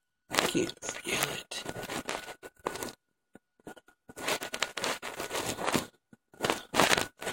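Scraping and rustling close to the microphone in irregular bursts with short silent breaks, from fingers rubbing and pinching the nose and face.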